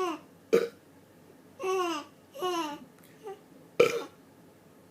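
A man's deliberate burps, two short sharp ones about half a second in and just before four seconds, the second the loudest. Between them a three-month-old baby gives two high laughing squeals, each falling in pitch.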